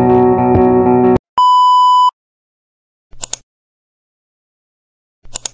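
Guitar background music that stops about a second in, then a single steady electronic beep lasting under a second, followed by two short mouse-click sound effects a couple of seconds apart.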